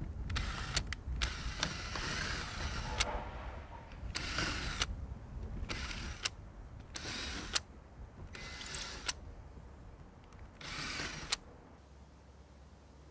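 Repeated short bursts of tool noise, about eight in all, several of them ending in a sharp click.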